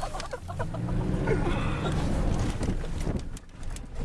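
Car engine running during donuts in snow, with wind buffeting the microphone.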